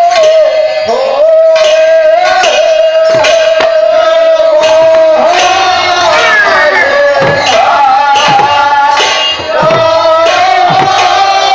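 Bengali kirtan: khol, the two-headed clay drums, beat a fast rhythm, with bass strokes that slide down in pitch. Over them a voice holds long, slightly wavering notes.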